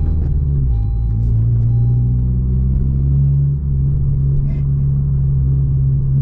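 Honda Civic hatchback engine and road rumble heard from inside the cabin. The engine note drops about a second in, then climbs slowly and steadily as the car pulls in gear.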